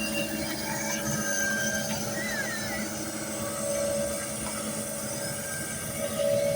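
Heavy road-construction machinery running with a steady drone and high metallic squeals, a few short wavering squeals about two seconds in.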